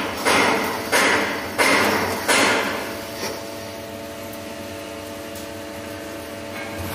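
CNC lathe turning a cone-shaped metal shaft: a string of sharp, evenly spaced cutting noises, about one every two-thirds of a second, then a steady machine hum after about three seconds.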